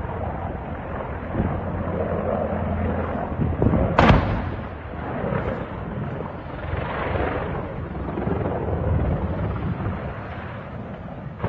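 A sharp, loud blast about four seconds in, from a British Starstreak missile striking a Russian military helicopter, over a steady low rumble, with a softer rolling rumble after it.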